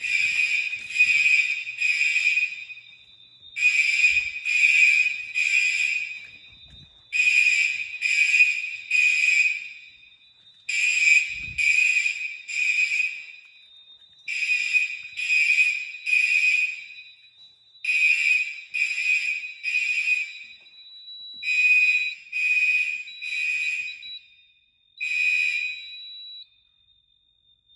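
Fire alarm horns sounding the temporal-three evacuation pattern: three short, shrill horn blasts, a pause, and again, over a thin steady high tone. The alarm stops near the end.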